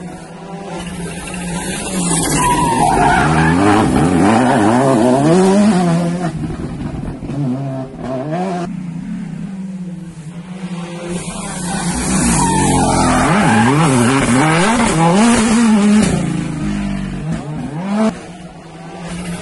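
Two rally cars go through a corner one after the other, at full racing speed. Each engine note rises and falls quickly as the driver lifts off and accelerates through the gears. Tyre noise can be heard as the cars slide across the loose surface.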